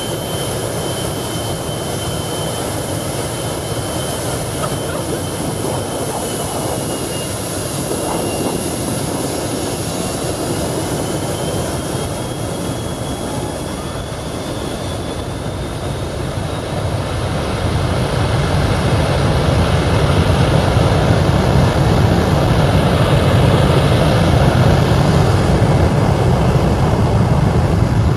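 Aircraft engines running close by: dense engine noise with a thin high whine that dips and then climbs again. The sound swells louder from about two-thirds of the way in, with a deepening rumble.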